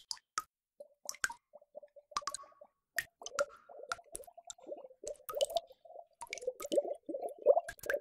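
Water drops plopping one after another, with bubbling that starts about a second in and grows busier and louder over the second half.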